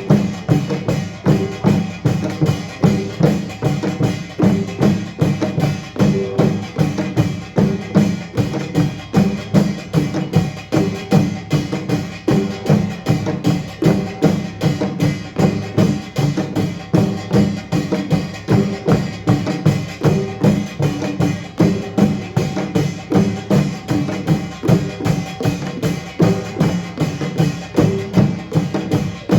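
Korean pungmul percussion ensemble of drums and gongs playing a driving rhythm, with strong beats about twice a second.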